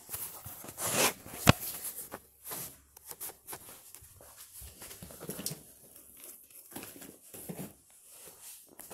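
Irregular rustling and crinkling handling noise, with one sharp click or knock about one and a half seconds in.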